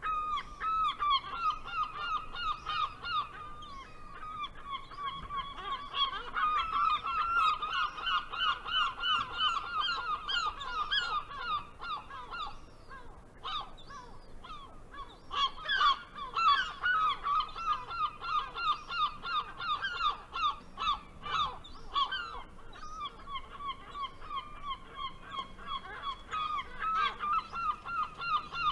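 Gulls calling: long runs of short, rapidly repeated yelping notes, with a brief lull about halfway through.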